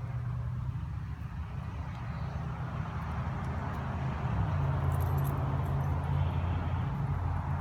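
Steady low mechanical hum with a faint hiss over it. Its pitch steps up and it gets louder about four and a half seconds in.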